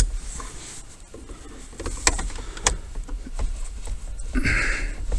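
Hard plastic clicks and knocks as the lower plastic steering-column cover of a 1994 Ford F250 is pushed and snapped into place, with a short scrape about four and a half seconds in and low handling rumble between.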